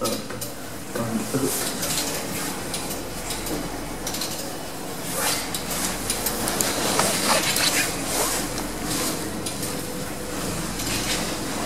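Passenger lift car travelling in its shaft, heard from on top of the car: a steady low hum from about two seconds in, with irregular clicks, scrapes and rattles of the moving car and its gear.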